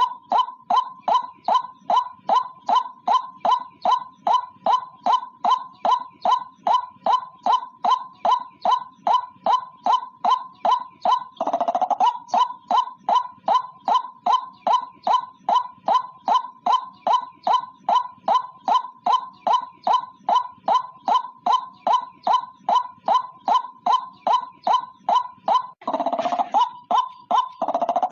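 White-breasted waterhen calling, a rapid run of repeated short notes at about three a second. The run breaks twice, about 12 s in and again near the end, for a brief rougher, lower call.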